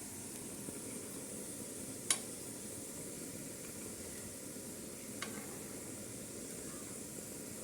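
Herbal mixture of ginger, garlic and spices sizzling steadily in a pan on a low flame, with a sharp click about two seconds in and a fainter one about five seconds in.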